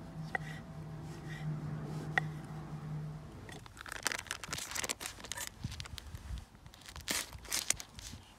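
Two sharp knife taps on a wooden cutting board, then, from about three and a half seconds in, plastic crinkling and tearing as a packet of mozzarella is handled and cut open.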